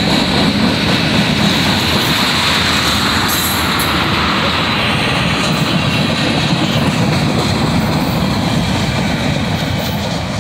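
Freight train of tank cars and covered hopper cars rolling past at close range: steady noise of steel wheels on rail with a faint, steady high whine, fading a little near the end.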